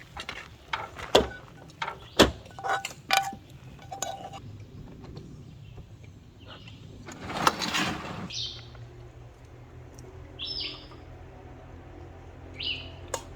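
Metal utensil clinking and scraping against a frying pan of scrambling eggs. Then a brief rush of noise, and short high bird chirps every couple of seconds over a faint low drone.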